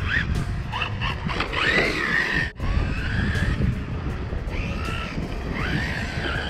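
An HPI RS4 Sport 3 RC drift car with a 4000kv brushless motor is driven hard on concrete. Its motor and tyres make short whines that rise and fall with the throttle, over a low rumble of wind on the microphone.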